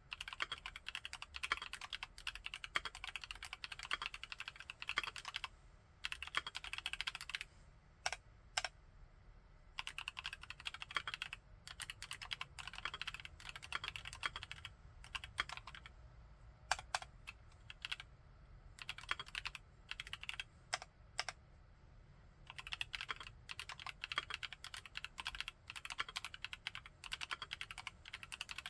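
Cidoo ABM648 mechanical keyboard with Kailh Cream linear switches being typed on in quick runs of keystrokes. Short pauses and a few single key presses fall between the runs.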